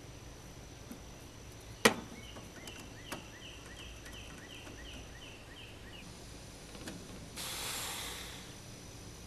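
A single sharp knock about two seconds in, then a lighter click, over a run of about ten quick high chirps falling in pitch. A short burst of hiss comes near the end.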